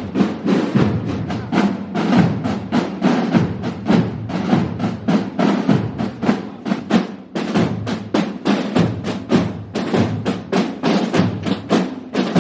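A street drum band of snare drums and bass drums playing together: a steady, fast marching beat of many strokes a second, with snare rolls.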